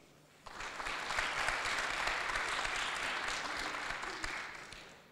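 Audience applauding, starting about half a second in, holding steady, and dying away near the end.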